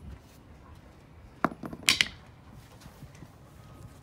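Claw hammer knocking twice: two short, sharp clacks about half a second apart, over a low wind rumble.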